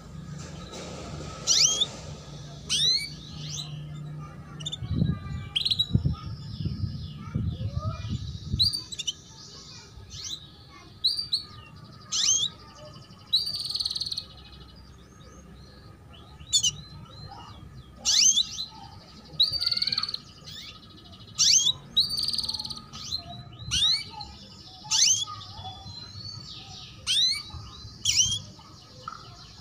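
Female canary giving short, sharp 'cuit cuit' chirps, each sweeping down in pitch and coming every second or two: the lure call canary keepers play to young canaries to start them singing and bring them into breeding condition. A low rumble sits under the first third.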